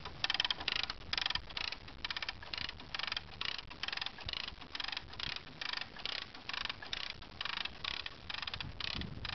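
Ratchet on a homemade ballista's winch being cranked to cock it: short rattles of pawl clicks in regular strokes, about two a second.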